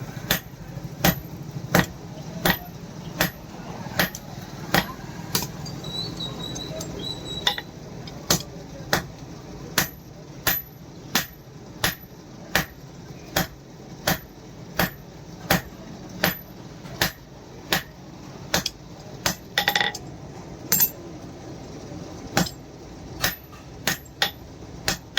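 Blacksmith's hammer striking steel on an anvil in a steady forging rhythm, about four sharp blows every three seconds, over a steady low hum.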